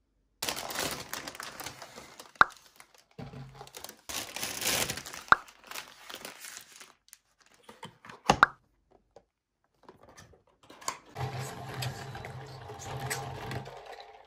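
Thin plastic takeout bags crinkling and rustling in bursts as food is unpacked, with a few sharp clicks along the way. A cardboard takeout box is handled later on.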